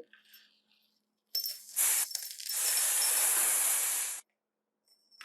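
Snake hissing: a short hiss about a second in, then a longer, steady hiss that cuts off suddenly near the end.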